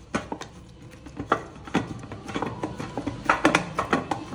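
Irregular clinks and knocks of kitchen utensils, some with a short metallic ring, as oil is smeared over freshly kneaded chapati dough; they come thicker and louder in the second half.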